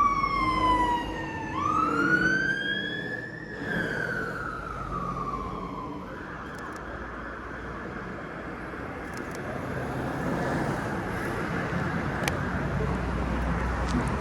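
Emergency vehicle siren wailing, its pitch sliding slowly down, up, then down again before it stops about six seconds in, leaving steady street noise.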